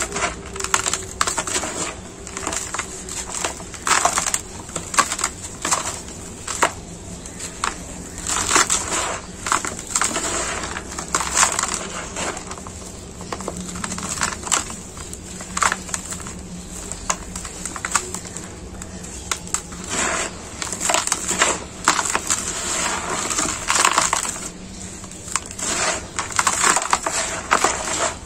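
Dry, dusty sand clumps crushed and crumbled in gloved hands, an irregular run of gritty crunches and crackles, with hissing stretches as the powder pours through the fingers.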